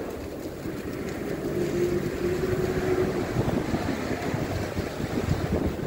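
Wind rushing and buffeting over the microphone of a handlebar-mounted phone while riding a bicycle, mixed with the rumble of road traffic alongside. A faint steady hum comes in for a second or two near the middle.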